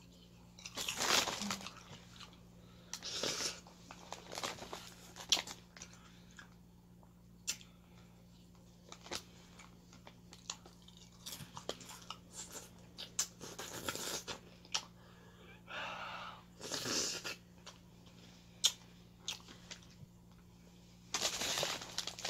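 Close-up crunching and chewing of crunchy snack chips, in irregular bursts every second or two with sharp crunches between them; a longer rustle near the end.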